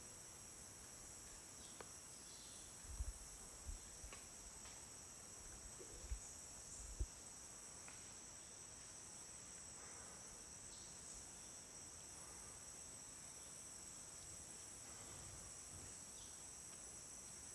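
Steady high-pitched chorus of tropical rainforest insects, with a few short low thumps between about three and seven seconds in.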